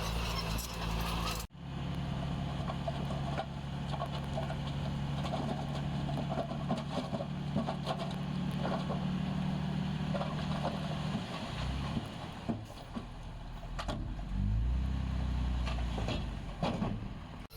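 Heavy construction machine's diesel engine running under load, its drone shifting in level a few times, with occasional knocks and clanks. The sound cuts abruptly to a new shot about a second and a half in.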